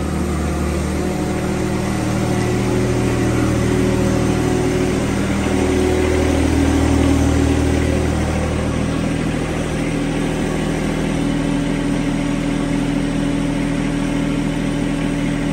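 John Deere compact tractor's engine running steadily as the tractor is driven, its note shifting slightly about a second in and again around nine to ten seconds.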